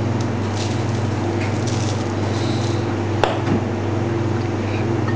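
Steady low machine hum, with faint rustling as dry seasoning is sprinkled over raw pork and one sharp click a little past three seconds in.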